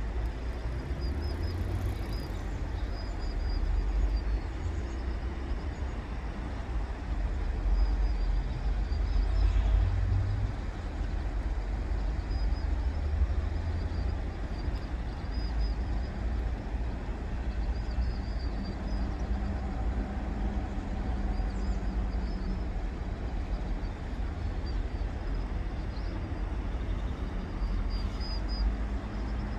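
Steady low rumble of road traffic that swells now and then, with faint, short, high chirps recurring over it.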